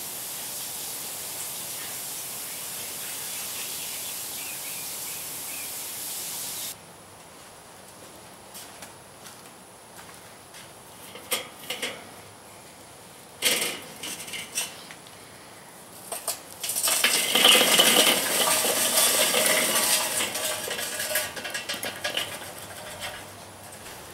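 Burning charcoal in a chimney starter hissing steadily, cut off abruptly. Then scattered metal clinks and knocks as the chimney is handled, and later a few seconds of clattering as the hot charcoal briquettes are poured out of the chimney onto the kettle grill's charcoal grate.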